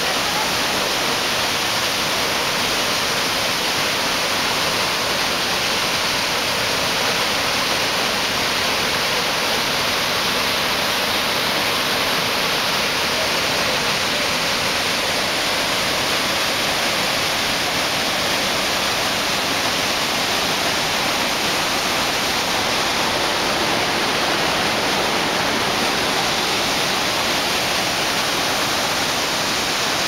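Large waterfall pouring into a rocky gorge: a loud, steady rush of falling and churning white water.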